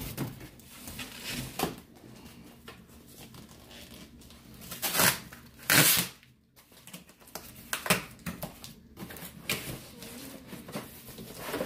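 Cardboard and paper packing being handled and pulled out of a shipping box: scattered rustles and scrapes, with two loud rustles about five and six seconds in.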